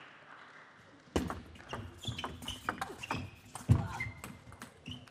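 Table tennis doubles rally: the ball clicking off paddles and table in quick succession, starting with the serve about a second in, with short squeaks from the players' shoes on the court floor and one heavier thump a little past the middle.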